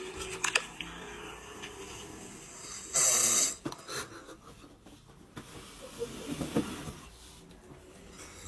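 A man snoring in his sleep: a loud hissing breath about three seconds in, and a rough, fluttering snore around six to seven seconds in.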